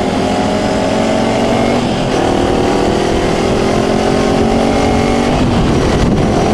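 Kawasaki Ninja 250's parallel-twin engine running at cruising speed, heard from the rider's seat with wind rushing over the microphone. The engine note steps in pitch about two seconds in and breaks up near the end as the throttle eases.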